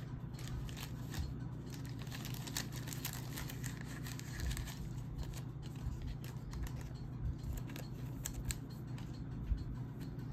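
Crinkling, tearing and scissor-like snips of a 2021 Donruss Optic football retail pack's foil wrapper and its cards being handled, in a run of quick small clicks and rustles over a steady low hum.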